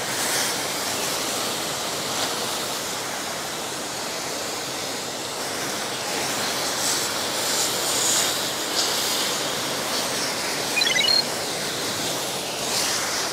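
Steady hiss of a water jet from a spray washer rinsing an orchid's roots and pot. A brief high chirp sounds near the end.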